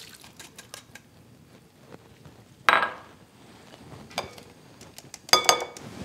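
Metal mesh strainer clinking against a glass mixing bowl as diced ham and vegetables are tipped and knocked into it: one sharp ringing clink about three seconds in, a lighter tick, then a quick run of ringing clinks near the end.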